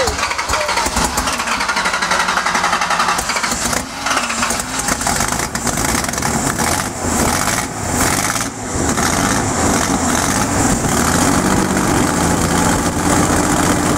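Datsun 280ZX's 2.8-litre straight-six running on its first start on a new, still untuned MegaSquirt fuel injection: rough and uneven at first, with brief stumbles, settling into a steadier idle near the end.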